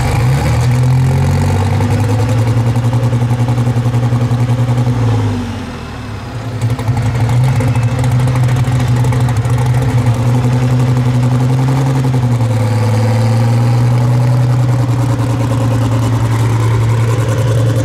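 Competition pulling vehicle's engine running hard at steady high revs, loud, dropping off briefly about six seconds in and then coming back up to a steady pitch.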